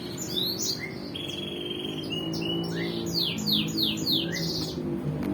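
Several songbirds chirping and whistling: quick runs of short falling notes with a few held whistles, over a low steady hum.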